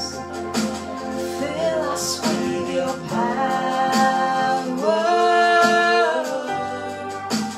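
A devotional hymn sung with instrumental accompaniment. A long note is held about five seconds in.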